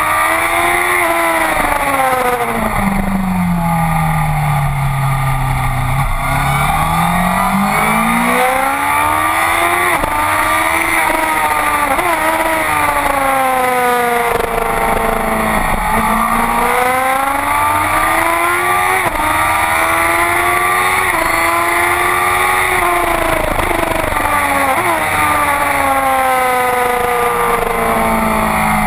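Honda CBR1000RR sport bike's inline-four engine at full race pace, heard from on board. Its revs climb hard through the gears and drop sharply under braking and downshifts several times, with the deepest drop about six seconds in. A steady rush of wind noise runs underneath.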